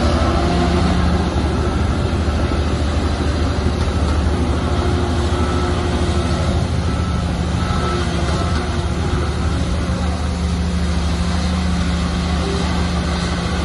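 Shantui bulldozer's diesel engine running steadily at working revs, a low, even engine note with machine noise over it.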